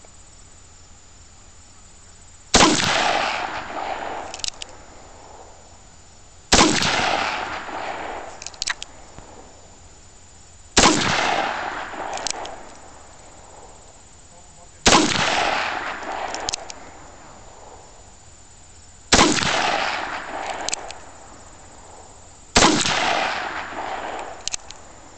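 Six shots from a Ruger Single Six single-action revolver firing .22 Magnum (.22 WMR) rounds, spaced about four seconds apart. Each report is followed by an echo that fades over a second or so, then a light click as the hammer is thumbed back for the next shot.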